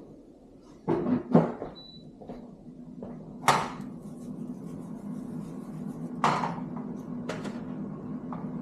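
Kitchen clatter: a cluster of knocks about a second in, then three single sharp knocks a few seconds apart, like utensils, a spatula and cookware being handled. A steady low hum runs underneath.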